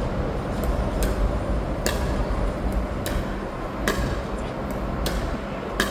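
Pickleball paddles tapping a plastic ball back and forth in a soft dink rally: a sharp pock about once a second, over a steady low background rumble.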